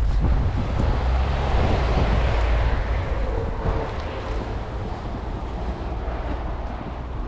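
Snowstorm wind buffeting the microphone with a heavy low rumble, over a rushing noise that swells about two seconds in and eases toward the end.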